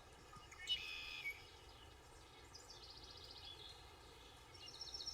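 Faint songbird calls: a short call about a second in, then rapid high trilled phrases around three seconds in and again near the end, over a quiet steady outdoor background.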